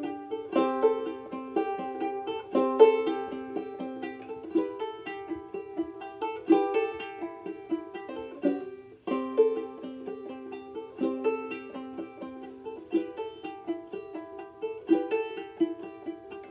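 Outdoor tenor banjolele in reentrant gCea tuning being played: a steady run of plucked notes and chords with a bright, short-decaying banjo-like twang.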